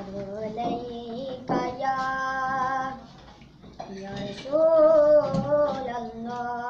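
A boy singing a naat, an Urdu devotional hymn in praise of the Prophet, in a high solo voice with long held notes. He sings two phrases with a short break about three seconds in.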